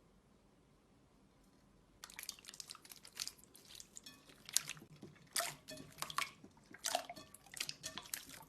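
Slime being pressed and played with, heard as irregular wet, sticky clicks and pops. They begin about two seconds in, after near silence.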